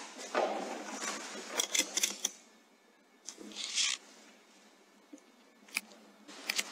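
Rustling with a run of sharp clicks in the first two seconds, another short rustle a little past halfway, and a few more clicks near the end.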